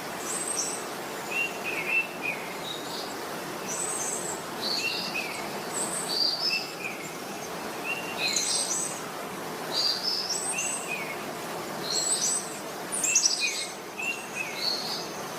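Several birds chirping and calling, with short high notes at a few different pitches repeating every second or so over steady outdoor background noise.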